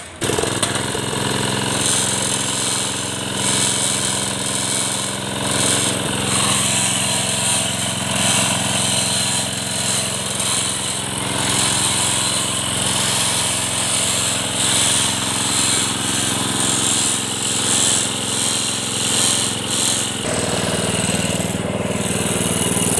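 Small single-cylinder petrol engine of a concrete power trowel catching on a rope pull and running steadily at a fast idle after a no-start repair. Its note shifts slightly about twenty seconds in.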